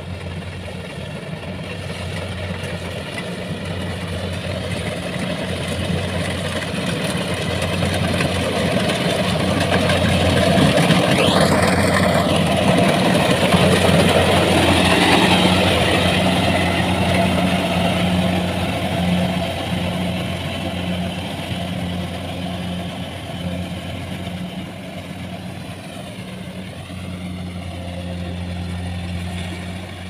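Kubota DC-70 Plus rice combine harvester working in the crop: its diesel engine and threshing machinery run with a steady hum. It grows louder toward the middle as the machine comes close, with a brief rising whine, then eases off.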